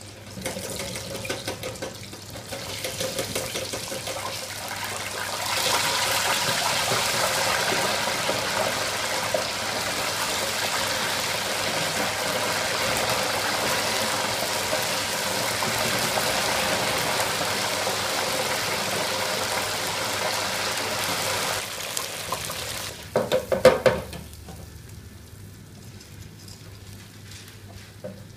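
Floured soft-shell crabs sizzling and bubbling in hot oil in an electric deep fryer. The frying hiss builds over the first few seconds, stays loud and steady, then falls away sharply about 22 seconds in. A short burst of loud clattering comes just after.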